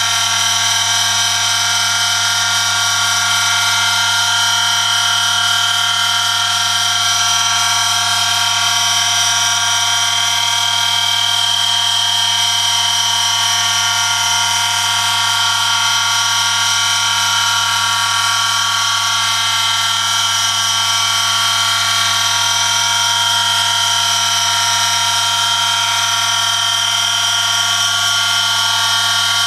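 Oil friction test rig running under load: an electric motor spins a shaft while a lever with a 1 kg weight presses a steel sample against it, metal rubbing on metal in engine oil. The result is a steady low hum under a loud, steady high-pitched squeal.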